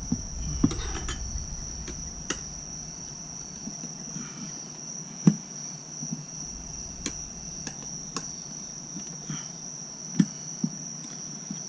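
Crickets trilling steadily, with scattered sharp metal clinks and knocks, about eight, irregularly spaced, as tire irons work a dirt bike tire's bead onto the rim.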